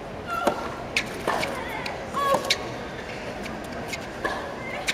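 Tennis ball struck back and forth by rackets in a rally on a hard court: a serve, then sharp pops at irregular intervals of roughly half a second to a second, with a few short high squeaks from players' shoes. Spectator chatter runs underneath.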